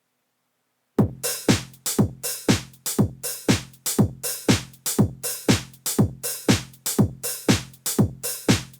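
Electronic keyboard's drum-machine beat starting about a second in: a steady four-on-the-floor kick, about two beats a second, with hi-hat-like hits over it.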